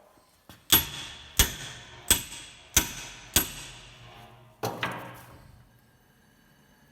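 A slogging hammer strikes the end of a Sykes Pickavant hub puller bolted to a Jensen Interceptor's rear hub, to shock the hub loose. Five evenly spaced, ringing metal blows come about two-thirds of a second apart, then a sixth, softer one about a second later.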